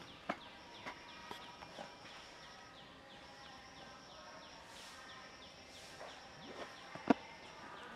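Outdoor ambience: a high insect-like whine that comes and goes, over a steady series of short falling chirps, about three a second. Scattered sharp clicks and taps, the loudest a single sharp knock about seven seconds in.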